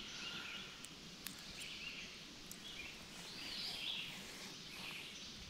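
Songbirds singing in the surrounding woods: short song phrases come several times over a faint, steady outdoor hiss.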